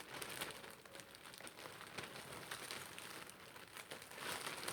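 Faint crinkling and rustling of plastic packaging being handled, with many small irregular crackles.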